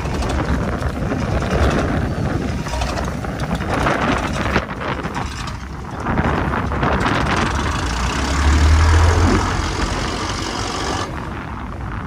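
Strong wind buffeting the microphone over the steady running of a small trawler's engine; a deeper engine hum swells for about a second near the two-thirds mark.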